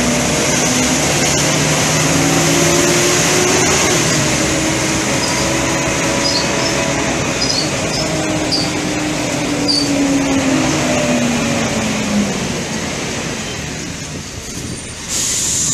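Interior noise of an articulated city bus on the move: a steady drone from the engine and drivetrain that slowly rises and falls in pitch, over road and body noise, with a few small squeaks in the middle. The noise drops briefly near the end, then comes back loud.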